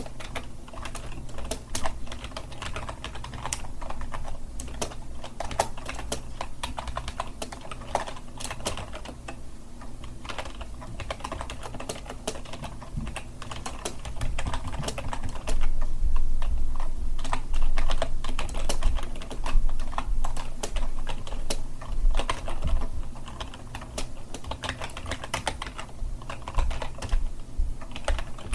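Continuous typing on a computer keyboard: a fast, irregular run of key clicks, a little louder in the middle stretch.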